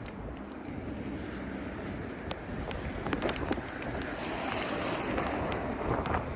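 Wind buffeting the microphone over the hiss of tyres rolling on a wet road, growing louder over the last few seconds, with a few scattered clicks.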